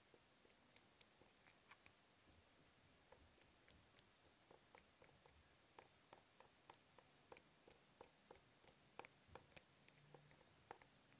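Faint, irregular little ticks and light scratching of a lens pen's foam tip being worked over a camera lens glass to rub off a smear, a few ticks a second.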